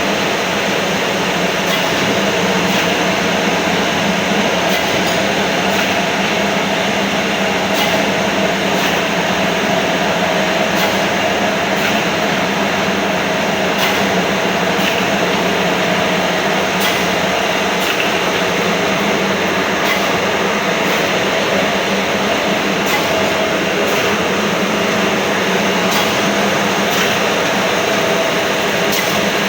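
Spice pulverizer mill running steadily: a loud, even machine noise with a steady hum and a faint tick about once a second.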